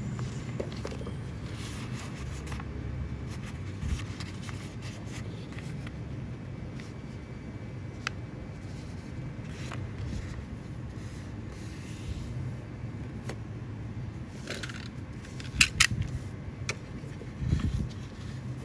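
A sheet of paper being handled, folded and creased by hand, with soft rustles and scrapes and a few sharper crinkles near the end, over a steady low hum.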